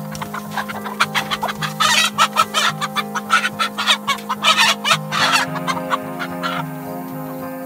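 Chickens squawking and clucking as one is grabbed by the legs and lifted, in a rapid flurry of loud calls from about a second in until near the end, over background music with steady held notes.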